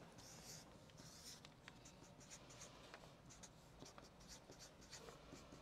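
A felt-tip marker drawing on chart paper hung on a whiteboard, in faint strokes: a few longer ones in the first second and a half, then a run of short, quick strokes.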